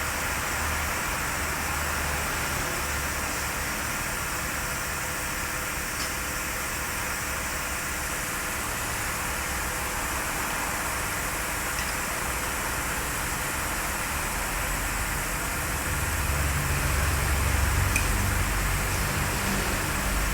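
Lexus 4.7-litre V8 engine running steadily, with a constant hiss of fan and air noise over a low rumble. The rumble grows louder about three quarters of the way through.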